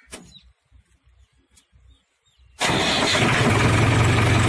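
Tractor diesel engine starting: after a faint click near the start and a couple of quiet seconds, it fires suddenly about two and a half seconds in and runs steadily with a low, even hum.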